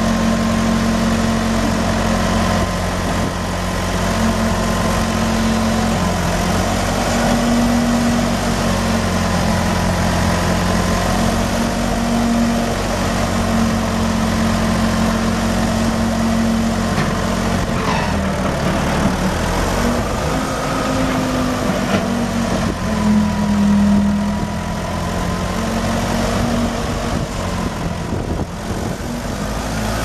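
Ford 755A loader tractor's four-cylinder diesel engine running steadily, its pitch wavering up and down as the front loader raises and lowers the bucket.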